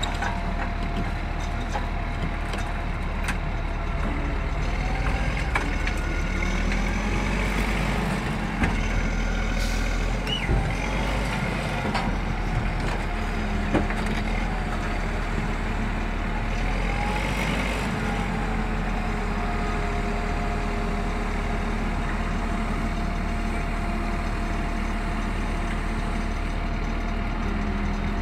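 Heavy diesel engines of an excavator and a crawler bulldozer working under load, pitch rising and falling as they pull, with a few sharp knocks and thuds in the middle as an overturned dump truck is hauled back onto its wheels.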